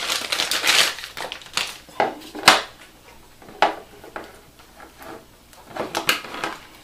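Plastic packaging bag crinkling as a power adapter is taken out of it. Scattered clicks and knocks follow as the adapter and its cable are handled on a wooden tabletop, the sharpest about two and a half seconds in.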